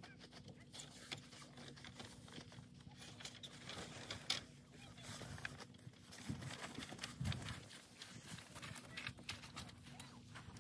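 Scattered light clicks and knocks with some rustling as a truck's side awning is pulled out and its support poles are set up, with a few soft low thuds in the second half.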